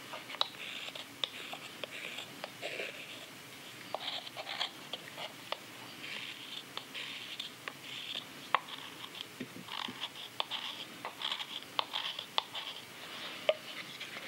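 Hook knife (spoon knife) cutting and scraping inside a green sycamore belt cup: a run of short, irregular scraping strokes with sharp clicks of the blade.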